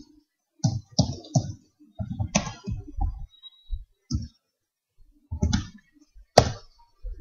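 Computer keyboard being typed on: an irregular run of separate keystrokes, the loudest one about six seconds in.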